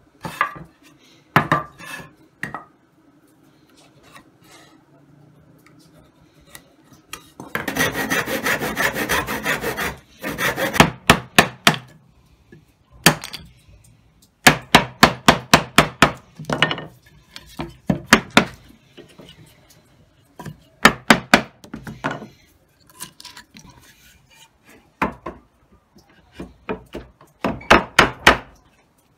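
Hand saw cutting pine rails in several runs of quick back-and-forth strokes, with a chisel working out the waste of a lap-joint notch.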